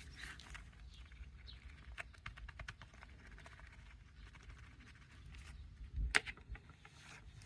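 Faint clicks and light knocks from the removed stabilizer links being handled and their worn ball joints worked, with one louder knock about six seconds in.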